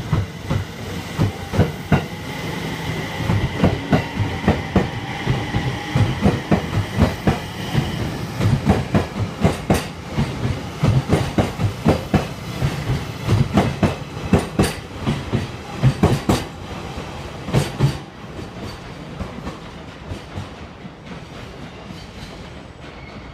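JR East 701 series and E721 series electric train pulling out. The wheels clatter over rail joints, the clacks coming quicker as it gathers speed, and a faint motor whine rises in pitch over the first several seconds. The clatter stops about 18 seconds in as the last car clears.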